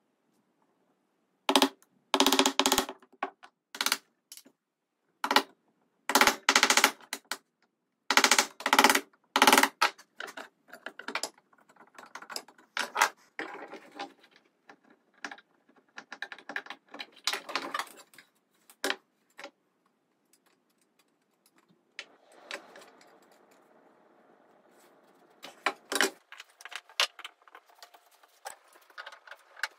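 Wooden mallet striking a chisel in rapid runs of sharp blows, chopping into oak, followed by lighter knocks and clatter of wood pieces and tools handled on the workbench. A faint steady hum comes in later.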